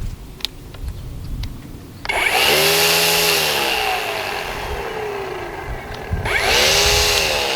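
Cordless battery-powered string trimmer motor run up twice: after a few light handling clicks it starts with a sudden whine that rises in pitch, then slowly winds down over a few seconds, and a second trigger pull about four seconds later repeats it.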